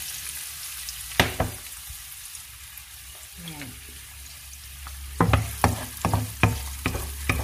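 Diced onion sizzling in hot annatto-coloured oil in a nonstick wok, with a single sharp knock about a second in. From about five seconds in, a wooden spoon stirs the onion, knocking against the pan several times a second.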